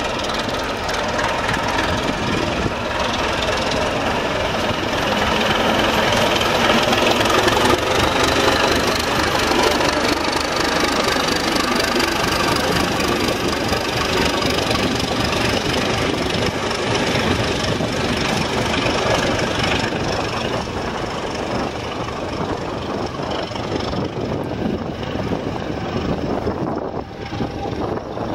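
ČSD class T478.1 "Bardotka" diesel locomotive pulling away with a passenger train, its engine working hard and rising in pitch as it accelerates. The sound grows loudest as the locomotive goes by, then slowly fades as the train draws away.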